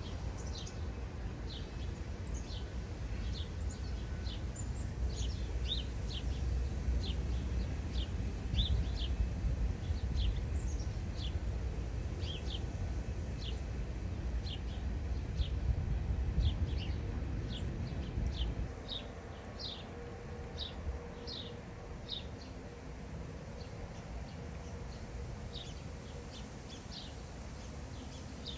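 Low, steady rumble of a passing train, which drops away sharply about two-thirds of the way through, with a bird chirping over and over in short, high, falling notes.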